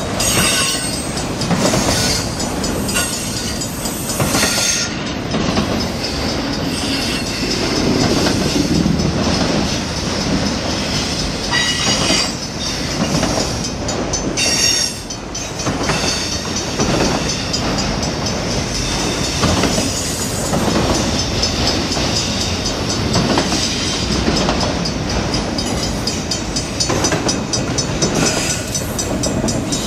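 Autorack freight cars rolling past close by: a steady loud rumble of steel wheels on rail, with repeated clacks as the wheels cross rail joints.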